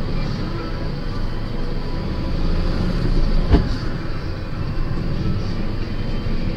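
Steady low rumble of a vehicle's engine and tyres on the road, heard from inside the cab, with one sharp knock about three and a half seconds in.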